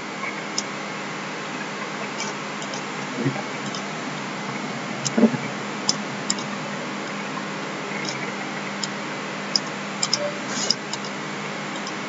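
Computer mouse clicking now and then, about a dozen scattered short clicks, over a steady hiss with a faint low hum.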